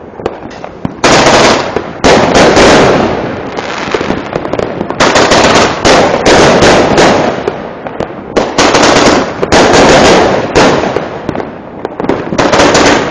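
New Year's Eve fireworks and firecrackers going off in dense volleys of rapid bangs and crackling, very loud, with short lulls between the volleys.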